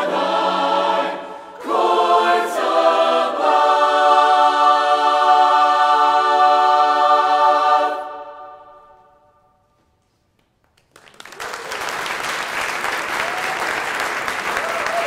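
Mixed choir of men's and women's voices singing and then holding a final chord, which is released and dies away into about a second of silence; then audience applause breaks out and carries on.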